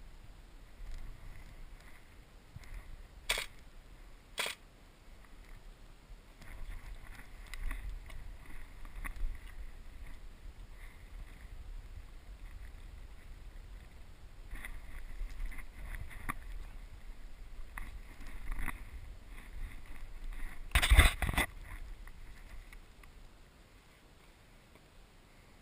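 Airsoft gun shots as sharp clicks: two single shots a few seconds in and a quick burst of several shots near the end, over faint rustling of movement.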